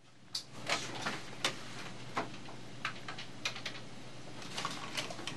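Keys being pressed: a dozen or so sharp, irregular clicks over a low steady hum.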